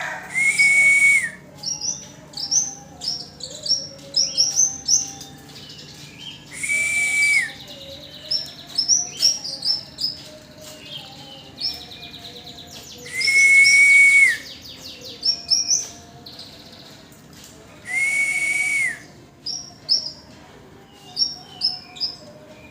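Yellow-bellied warbler (cikrak bambu) singing in quick clusters of short, high, sharp chirps. Four times, about six seconds apart, a louder level whistle-like tone with a hiss sounds for about a second.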